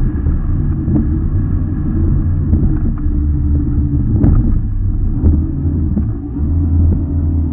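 Racing RIB's engine running steadily at speed, heard from onboard, with a few short knocks as the hull hits the chop.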